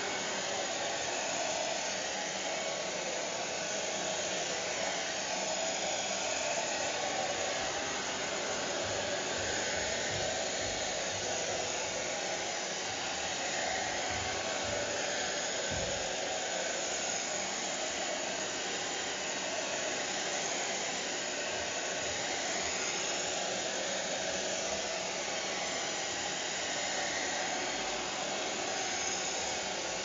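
Hair dryer running steadily: an even rush of air from its fan and motor, holding one speed throughout.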